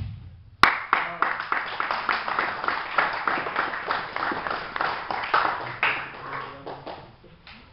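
A sharp slap, then a small group of people clapping for several seconds, the applause thinning out and stopping near the end.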